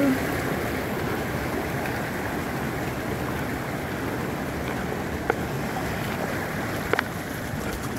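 Steady rush of a creek running over rocks, with a couple of short sharp clicks about five and seven seconds in.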